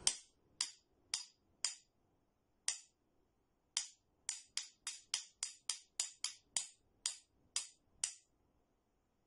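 Two metal spoons held back to back and struck together, tapping out a 4/4 rhythm exercise in sharp clicks. The pattern is four even strokes, then two single strokes with pauses between, then a quicker run of about eight strokes at double speed, then four even strokes.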